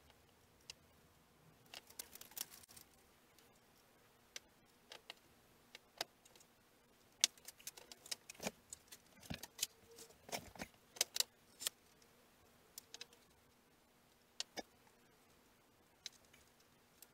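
Irregular light clicks, taps and rustling from hands working balsa sheeting and small tools on a model aircraft fuselage, busiest through the middle and thinning out towards the end.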